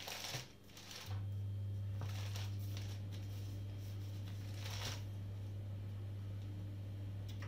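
Soft rustling of a cloth towel and thin baklava phyllo (yufka) sheets being handled, in a few short bursts, over a steady low hum that starts about a second in.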